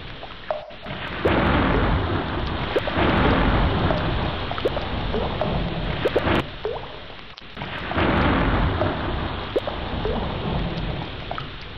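Heavy rain pouring with thunder rumbling. The storm swells loud about a second in, eases briefly around seven seconds in, then swells again.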